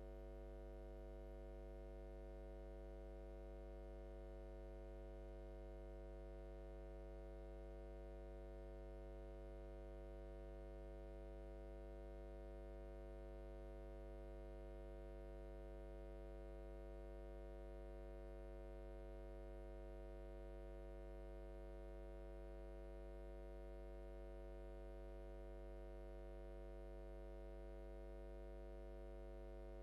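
Faint, steady electrical mains hum: a low buzz with a stack of overtones that does not change.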